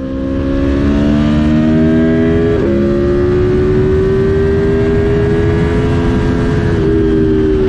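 Aprilia Tuono motorcycle engine pulling under acceleration, its pitch climbing slowly, with two quick upshifts, about a third of the way in and near the end, over wind rush.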